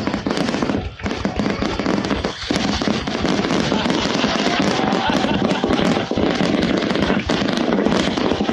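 Fireworks finale barrage: many aerial shells bursting and crackling in quick succession. A few separate bangs at first merge after a couple of seconds into a continuous rolling din.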